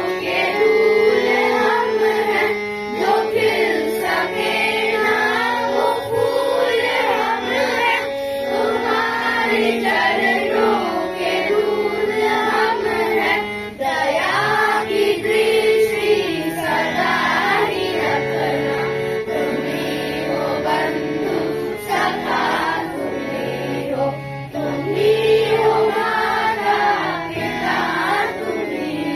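A group of children singing a Hindi devotional prayer song together, over instrumental accompaniment with long held notes and a stepping bass line.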